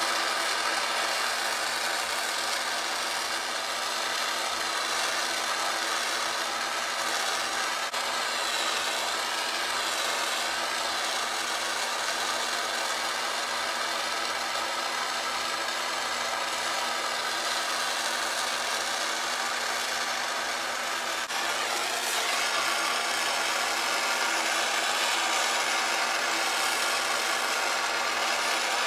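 Handheld gas torch burning with a steady hiss as its flame is played over a titanium exhaust header pipe to heat-colour it.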